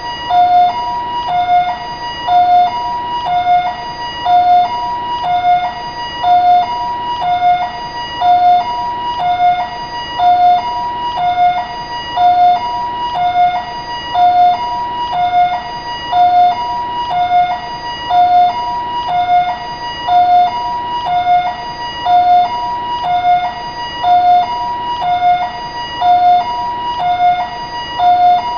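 Taiwanese ambulance siren sounding its two-tone hi-lo call, a lower and a higher note alternating evenly about once a second and repeating without change.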